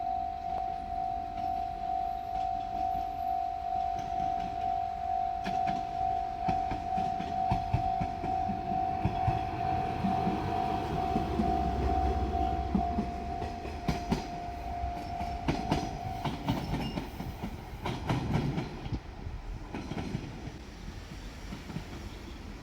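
A Japanese level crossing's warning bell rings in a steady, pulsing tone while a JR Shikoku Series 1500 diesel railcar passes, its wheels clicking over the rail joints over a low engine rumble. The bell stops about two-thirds of the way through, once the train has cleared the crossing.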